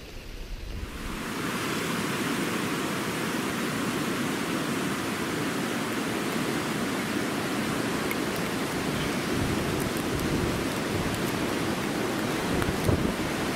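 Steady rushing hiss of heavy rain and wind, rising about a second in.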